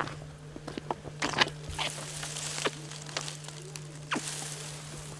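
Scattered light clicks and knocks, with hissing rustles about two seconds in and again near the end, over a steady low hum.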